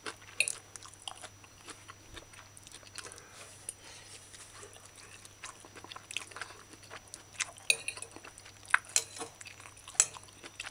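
Metal fork clicking and scraping on a ceramic plate as food is scooped up, with chewing between. The clicks are scattered, with a few louder ones near the end.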